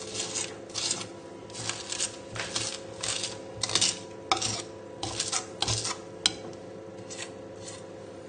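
Chef's knife blade pressing and scraping garlic and salt across a wooden chopping board, a gritty crunching with each stroke, about one to two strokes a second, fewer and fainter near the end. The crunch is the salt grinding the garlic down into a paste.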